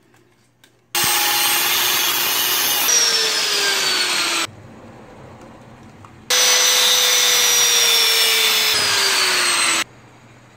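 Electric power tool working on steel pipe, run in two bursts of a few seconds each; the motor's pitch sinks steadily during each run as it loads down in the metal.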